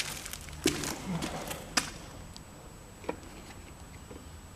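Footsteps and scuffs on a wet concrete floor: a string of short sharp clicks and taps, busier in the first couple of seconds and thinning out after.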